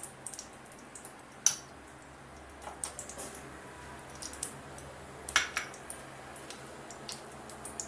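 Spoon and dishes clinking: a metal spoon tapping and scraping in a steel kadhai as ghee is spooned in, then light clicks of bowls being handled, with two sharper knocks, about a second and a half in and again about five seconds in.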